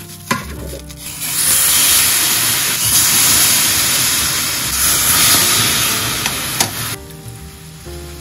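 Marinated pork neck slices sizzling loudly in a hot stainless steel frying pan. A couple of clicks come as the meat goes in, then the sizzle starts about a second in and drops off sharply near the end.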